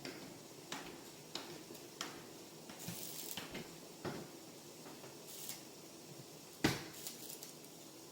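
Kitchenware being handled: a scattering of light clicks and knocks, with one louder knock near the end.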